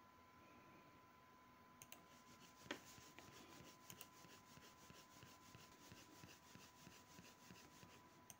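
Near silence with faint computer mouse clicks, scattered from about two seconds in, one a little louder than the rest, over a faint steady hum.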